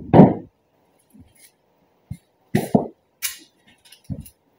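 Scattered knocks and rustles of someone moving about and handling things close to the microphone, with a loud thump just after the start and smaller knocks and clatter after it.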